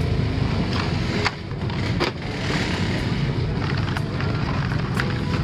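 Plastic blister packs of diecast toy cars clicking and rustling against each other and the cardboard box as a hand rummages through them, with a burst of rustling about halfway through, over a steady low rumble.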